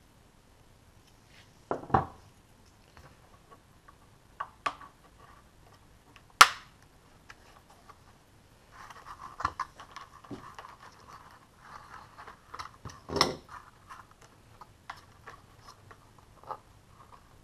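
Hands handling and fitting a model glider's tail section onto its plastic fuselage: scattered clicks and knocks, the sharpest about six seconds in, and spells of plastic and foam rubbing and scraping as the parts are pressed together.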